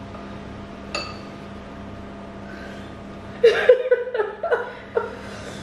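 A woman laughing in short bursts from about three and a half seconds in. About a second in, a single light clink of a metal utensil against a ceramic bowl.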